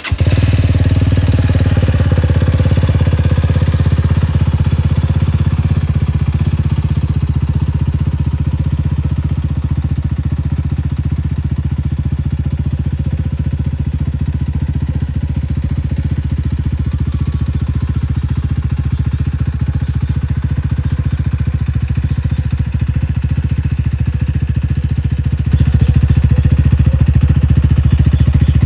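Rusi Titan 250i (Loncin AC4) motorcycle's 250 cc engine catching right at the start, then idling steadily with an even low note; it gets a little louder near the end.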